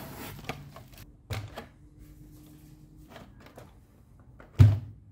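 Handling noises as a nitro RC buggy is lifted out of its cardboard box: scattered knocks and rustles, with one loud thump about four and a half seconds in.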